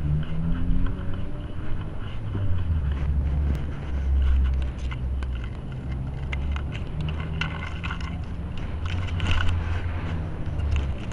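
Low, uneven rumbling and scraping noise from a cat-mounted camera moving through grass, its microphone rubbing against the cat and the grass, with scattered small clicks.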